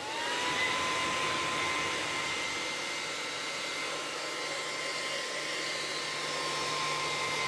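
Small handheld car vacuum cleaner, its replacement motor running on 12 V DC, spinning up at the start with a rising whine and then running steadily with a high whine over an airy fan rush.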